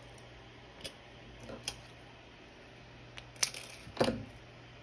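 Light, scattered clicks and taps of thin craft wire being handled and set down on a wooden tabletop, with a louder knock about four seconds in, over a faint steady hum.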